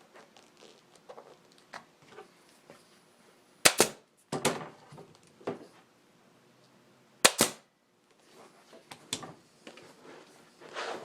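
Staple gun firing staples through a motorcycle seat cover into the seat pan: sharp shots about four seconds in and again about seven seconds in, with quieter handling clicks between.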